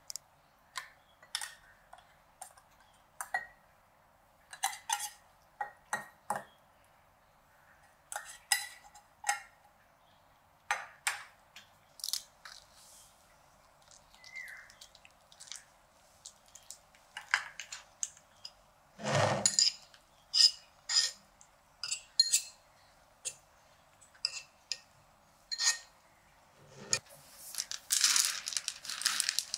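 A metal food tin and utensil clink and tap against a ceramic bowl in a long run of short, sharp clicks as canned shredded chicken is scraped into it. There is one heavier, longer knock about two-thirds of the way through, and a denser patch of small noises near the end.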